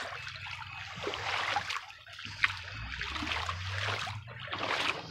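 Swift, shallow creek water running and trickling over rocks, with a couple of brief sharp sounds about two seconds in.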